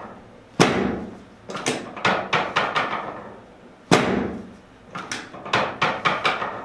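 Sharp knocks and clacks from a chiropractic adjustment session. A loud knock comes about every three seconds, each followed by a quick run of lighter clicks, the pattern repeating twice.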